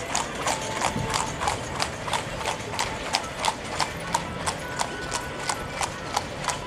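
Carriage horse's hooves clip-clopping on the asphalt street at a walk, a steady beat of about three hoof strikes a second.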